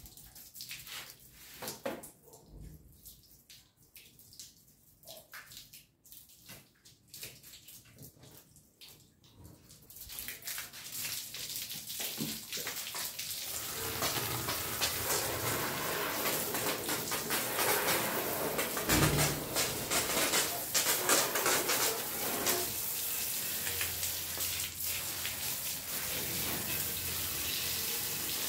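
Water from a garden hose, its end pinched by a thumb into a spray, hissing and splashing onto a motorcycle's tank and engine. Only scattered drips and splashes at first; the steady spray starts about ten seconds in and builds over the next few seconds.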